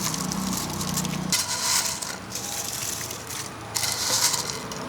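Cornflakes being added to ice cream, crackling and crunching in two dry rustling bursts, about a second and a half in and again near four seconds.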